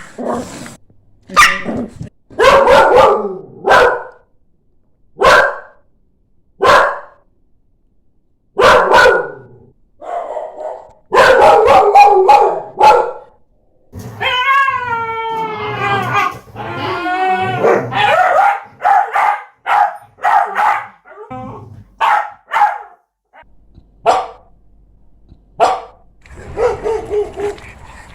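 Dog barking: loud, short, separate barks with pauses between them, and about halfway through a longer stretch of drawn-out, wavering, pitched calls.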